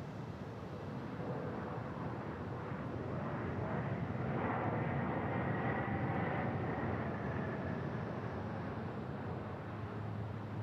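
Embraer E195-E2 jet airliner passing, its turbofan engines swelling to a peak about five seconds in with a faint whine over the rumble, then fading.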